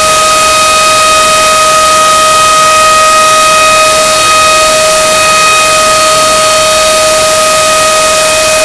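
Screaming chicken sound effect, extended into one loud, unbroken, distorted scream held at a single steady pitch over a harsh hiss.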